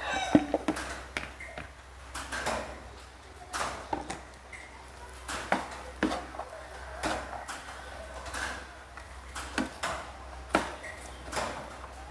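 Wooden spatula scraping and knocking against a nonstick frying pan while stir-frying rice with diced vegetables, in irregular strokes about once a second.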